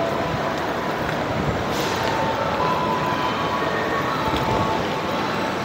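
A train running, a steady rumble with faint high tones that come and go.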